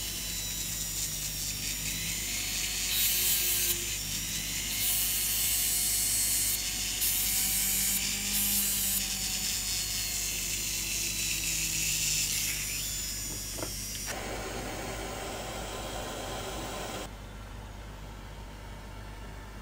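Steady rasping and scraping of a hand tool worked against metal, as in filing or sawing a small cast gold jewellery piece. The sound changes abruptly twice near the end, and gets quieter after the second change.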